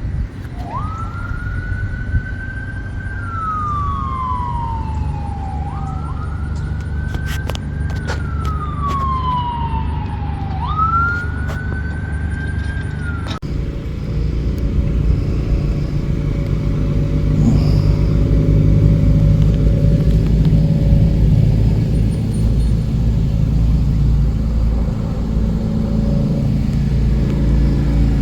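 A siren wailing, three slow rise-and-fall cycles, which cuts off suddenly about halfway through. A low steady rumble runs underneath and grows a little louder after the cut.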